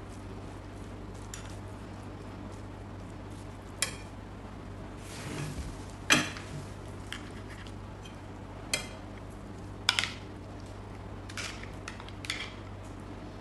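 Metal kitchen utensils clinking and scraping against a glass bowl as a chicken filling is spread and sauce is spooned over it: about six separate clinks, the loudest about six seconds in, over a steady low hum.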